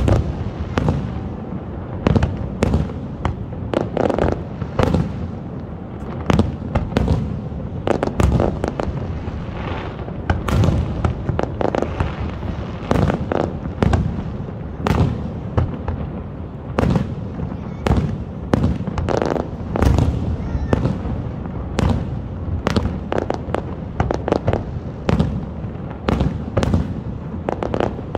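Fireworks display of mid- and low-altitude shells bursting in quick succession: sharp bangs about one or two a second over a continuous rumble and crackle.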